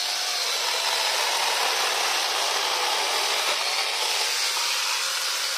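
Electric angle grinder fitted with a chainsaw adapter, its motor running steadily while the chain cuts through a log.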